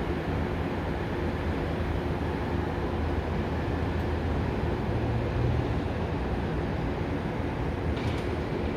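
Boeing 767 freighter's jet engines making a steady, deep rumble during takeoff.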